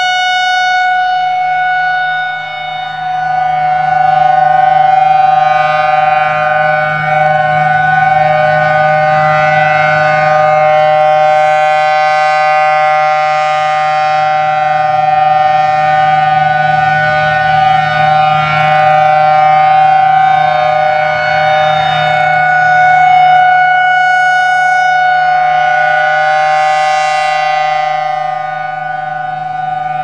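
Federal Signal Thunderbolt 1000T supercharged outdoor warning siren, 4/5 port, sounding at full speed with a steady two-note chord. Its loudness swells and fades as the rotating horn sweeps around, dipping about two seconds in and again near the end.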